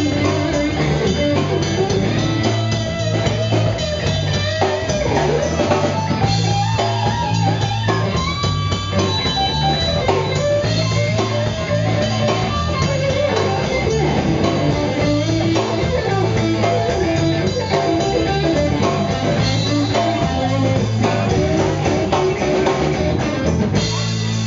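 Blues-rock power trio playing live: an electric guitar lead line over a walking bass line and drum kit, with no singing.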